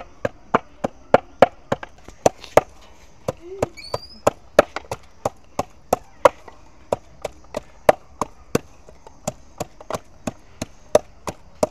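Wooden pestle pounding ginger, garlic and salt in a wooden mortar: a steady run of dull wooden knocks, about three a second.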